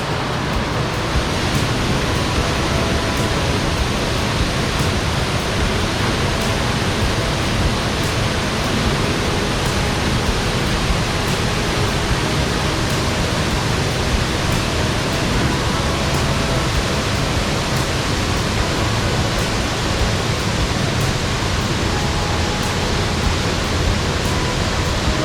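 Small waterfall, water pouring and splashing into its pool in a steady, unbroken rush.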